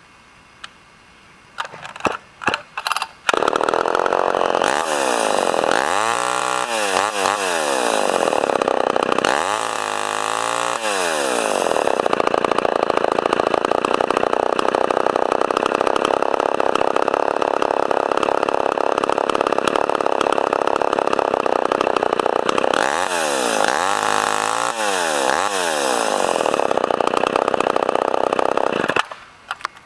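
Homelite Super XL two-stroke chainsaw with a bow bar starting after a few short pops, then running loudly and being revved up and down several times, with a steady stretch in the middle. It shuts off suddenly near the end.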